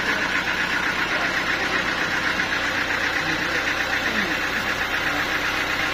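Sawmill machinery running steadily, a motor-driven saw and its drive giving an even mechanical noise with no breaks.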